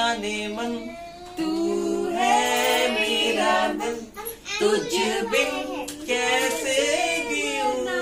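People singing a song together, with a female voice prominent.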